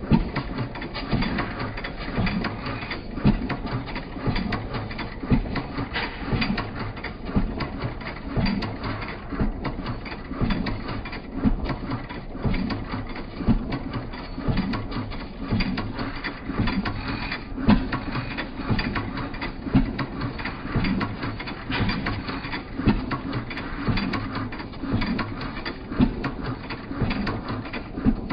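Small motor and gears of a rotating colour-changing party light running, with a steady mechanical whir and a regular clicking about once a second.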